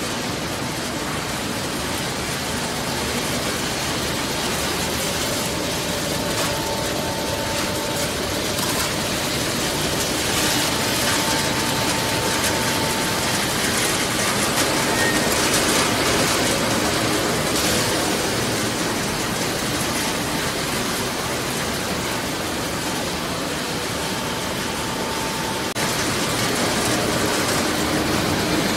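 Peanut processing machinery running: a steady mechanical clatter and hum, with a faint whine that comes and goes.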